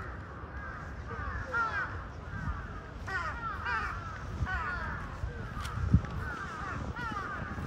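Birds calling over and over, many short rising-and-falling calls overlapping one another, above a low rumble. A brief thump about six seconds in.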